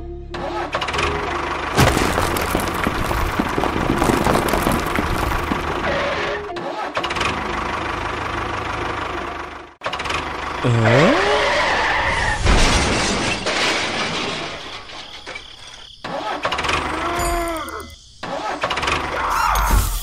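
Background music mixed with a vehicle engine sound effect dubbed over a toy tractor scene, broken by several abrupt cuts. A few gliding tones come in about halfway through and again near the end.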